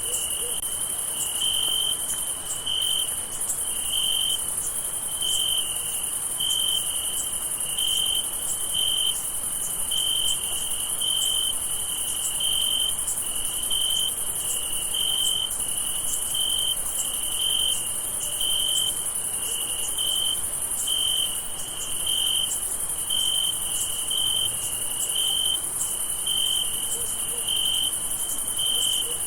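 Crickets chirping at night: one cricket chirps in an even pulse about once a second, over a continuous high-pitched trill from many more insects.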